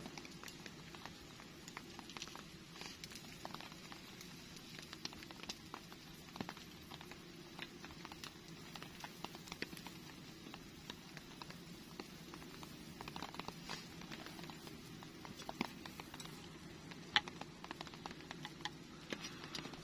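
Rain pattering, with many scattered, irregular drop ticks over a faint steady hiss.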